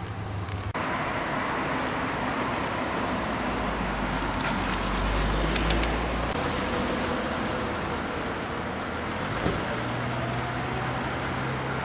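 Road traffic on a town street: a steady noise of cars, with a louder low rumble from a vehicle going by about halfway through.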